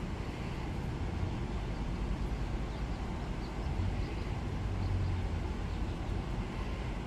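Steady low outdoor rumble with no distinct event, swelling a little about four to five seconds in.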